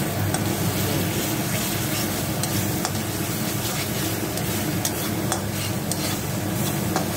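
Onion-garlic masala paste sizzling in oil in a kadai as a steel spatula stirs and scrapes through it, with scattered clicks of the spatula against the pan. The masala is being fried until it turns red.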